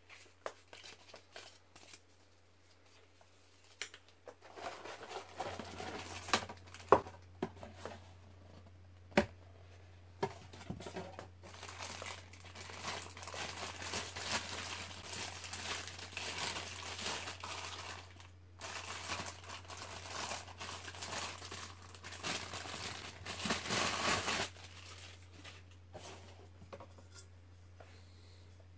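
Packaging being crinkled and rustled as it is unwrapped, with a few sharp clicks and knocks among it. It starts a few seconds in and stops abruptly near the end, over a low steady hum.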